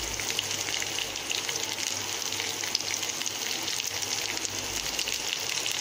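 Chopped green beans, onions and green chillies frying in oil in a kadai: a steady sizzle with an occasional faint crackle.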